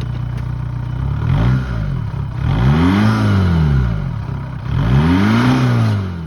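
Volkswagen Jetta engine idling, then revved three times, each rev rising and falling back: a short blip, then two longer, higher revs.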